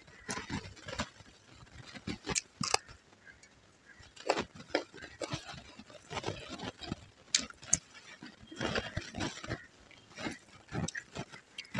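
Close-miked eating sounds: irregular wet chewing and lip smacks, with fingers mixing rice on a steel plate.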